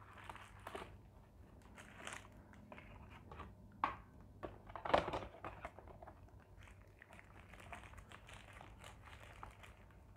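Faint rustling and crinkling of a paper food wrapper as a piece of fried chicken is lifted from a cardboard takeaway box and unwrapped, with a couple of louder crackles about four and five seconds in.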